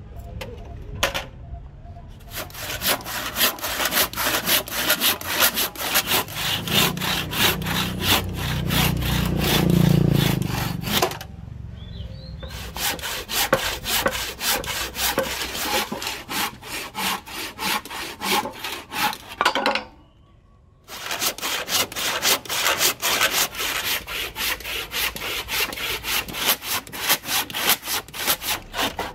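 Hand saw cutting rapidly through a Millettia leucantha hardwood blank in quick, even strokes, sawing a row of relief cuts down to the marked axe-handle outline. The sawing stops briefly twice, about a third of the way in and again about two thirds of the way in.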